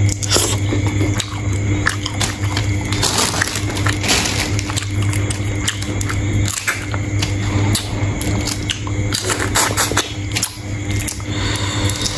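A person eating shrimp close to the microphone: wet chewing and squishing with many irregular crackling clicks, over a steady low hum.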